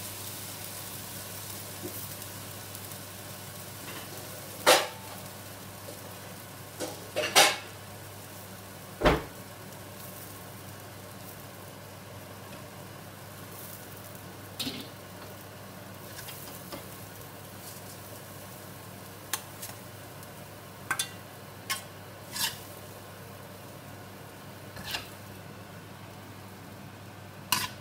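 Vegetable filling sizzling in a hot carbon-steel wok, the hiss strongest at first and easing off. Metal ladle and spatula clank and scrape against the wok every few seconds as the filling is stirred and scooped out.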